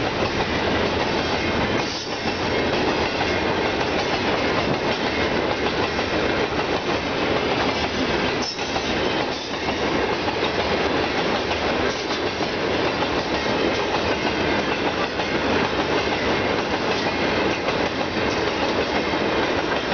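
Freight train hopper wagons rolling past close by: a steady rumble and rattle of wheels on the track and wagon bodies clattering.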